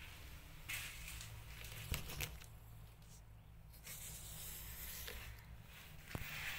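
Faint rustling of a towel as young kittens crawl over it, in short scuffs a couple of seconds apart, with a soft click near the end, over a steady low hum.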